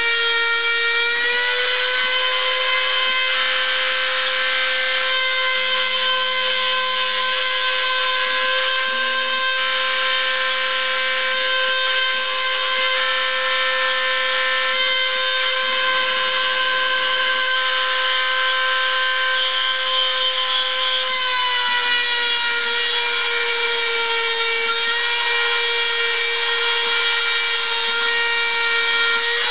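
High-speed rotary-tool spindle of a homemade CNC router whining at about 30,000 rpm while its bit mills 3 mm plywood. The steady whine dips slightly in pitch about two-thirds of the way in and comes back up near the end. Underneath, the axis stepper motors hum in short stretches that start and stop as the machine moves.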